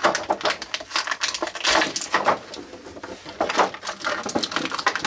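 Plastic toy packaging crackling and clicking as it is worked open by hand, in a dense run of quick sharp crackles.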